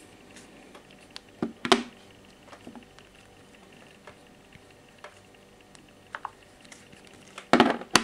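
Mobile phones being handled and set down on a wooden table, with light clicks and knocks of their plastic and metal backs against the wood. There are two louder clusters of knocks, one about a second and a half in and one near the end, as the phones are laid down side by side.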